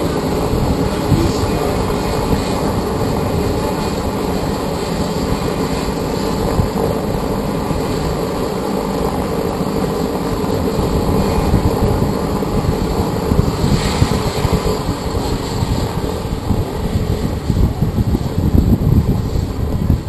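Steady rumble of a UH-72 Lakota helicopter's twin turbines and rotor running, mixed with wind buffeting the microphone, which turns gustier in the last few seconds.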